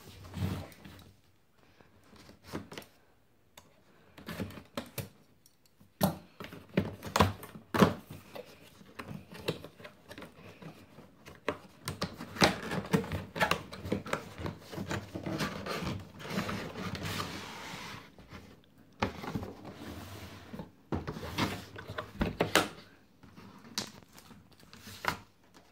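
Hands handling and opening a cardboard box: scattered knocks, taps and scrapes on the cardboard, with a longer spell of steady rubbing and sliding about halfway through as the lid is worked open and the packing inside is handled.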